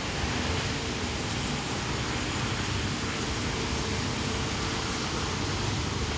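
Distant approaching diesel-hauled passenger train: a steady, even rumbling noise with a faint low hum running through it.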